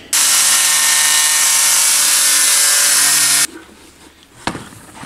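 A power tool runs steadily at full speed for about three and a half seconds, then cuts off suddenly; a few light knocks follow near the end.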